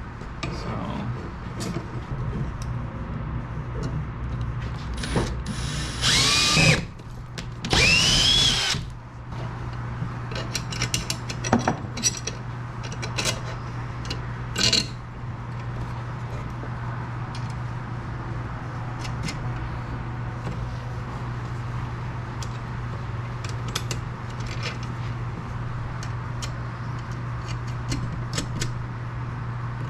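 Power drill run in two short bursts about six and eight seconds in, its motor whine rising in pitch as it spins up. Scattered light clicks and knocks of hardware and tools being handled follow, over a steady low hum.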